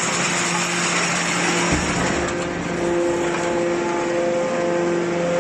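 Hydraulic can baler running, its pump and motor giving a steady hum with a few held tones over a noisy machine haze.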